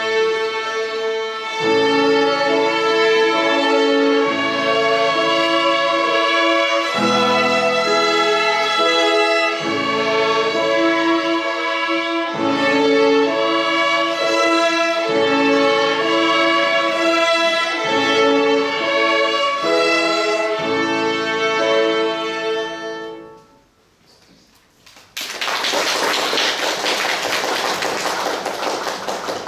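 A children's violin ensemble with piano accompaniment plays a simple tune in unison, with the piano's low chords changing about every two and a half seconds. The music ends about 23 seconds in, and after a short pause the audience applauds.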